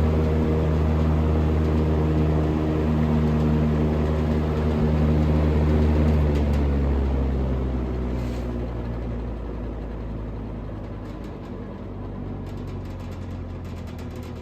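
Vintage General Electric W25 box fan running at full speed, its motor humming steadily under the rush of air from the blades, now turning freely after being woken up. The sound grows quieter from about halfway through.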